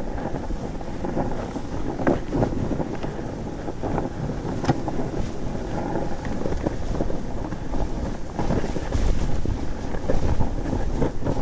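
Snowracer steering sled's skis rushing and hissing through powder snow at speed, with wind buffeting the microphone and a few short knocks from bumps along the way.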